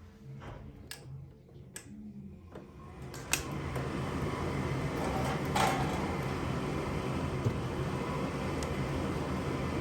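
A few clicks and knocks, then, about three seconds in, a click as the gas furnace's draft inducer motor starts and runs steadily. This is the first step of the furnace's ignition sequence.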